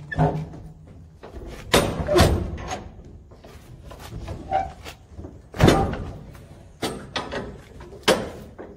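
Steel shipping container door being forced open: its locking-bar handles and rods clank and bang in a string of sharp metal knocks, the loudest about two seconds in and again near six seconds, until the heavy door comes free.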